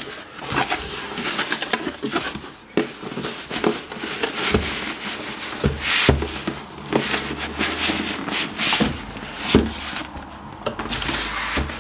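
Cardboard shipping carton being handled: the flaps rustle and the white product box scrapes and slides out against the corrugated walls, with clicks and several dull thumps along the way.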